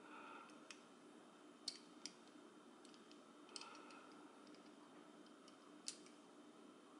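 Cast metal pieces of a Hanayama Cast Coil puzzle clicking against each other as they are turned and slid together by hand: a handful of faint, sharp clicks with light rubbing between them. The loudest clicks come just under two seconds in and about six seconds in.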